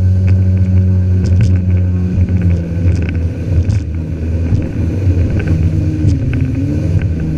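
Yamaha WaveRunner FX HO jet ski running under way, a loud steady engine drone with water and wind noise. The engine note eases and wavers in the second half, and the sound cuts off abruptly at the end.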